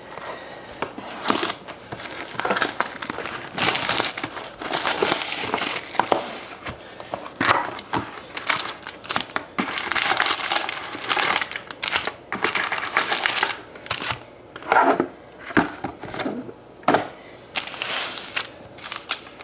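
Plastic wrapping crinkling and being torn off a sealed box of trading cards, in irregular bursts of crackling.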